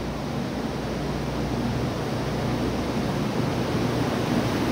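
JR Kyushu 811 series electric multiple unit pulling out of the station: a steady rush of running noise with a faint low hum, growing gradually louder as the train gathers speed.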